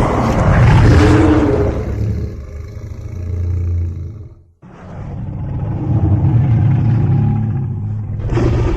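Godzilla-style monster roars taken from Godzilla film sound effects: a long, deep, rasping roar that dies away about halfway, then a second roar right after it. A third begins near the end.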